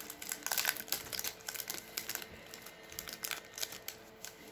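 Crinkling and tearing of a hockey card pack's wrapper being handled and opened, in irregular crackly bursts.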